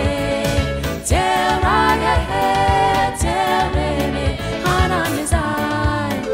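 Background music: a song with singing voices over a steady beat.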